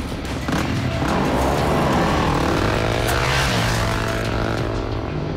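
Motorcycle engine revving hard, its pitch sweeping up and then down, over music.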